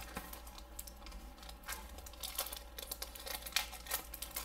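Clear plastic wrapper crinkling in irregular crackles as it is handled and opened.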